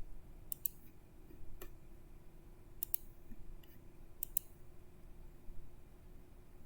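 Scattered clicks of a computer mouse, a few of them in quick pairs, over a faint steady hum.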